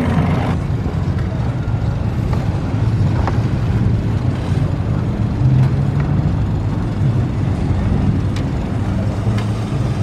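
Boat engine idling with a steady low rumble, with wind gusting on the microphone.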